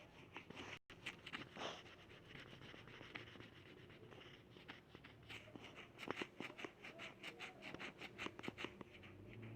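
A woman's stomach growling, heard close up as a faint run of small irregular pops and gurgles that grow busier about halfway through.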